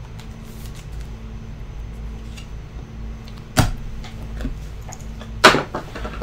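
Low steady hum, broken by two short sharp handling sounds from trading cards and their packaging being handled: one about three and a half seconds in and a louder one near the end.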